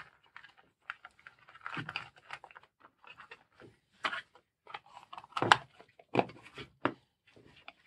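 Grey plastic junction box being closed by hand over its wiring: scattered plastic clicks, taps and rustling as the wires are pushed in and the lid is fitted, with a few sharper knocks in the second half.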